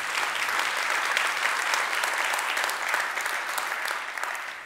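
Large seated audience applauding, many hands clapping steadily, then dying away near the end.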